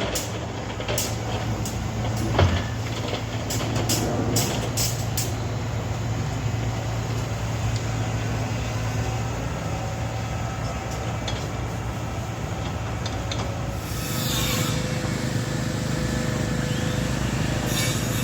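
A vehicle running with a steady low hum, with a sharp knock about two and a half seconds in and a rise in noise near the end.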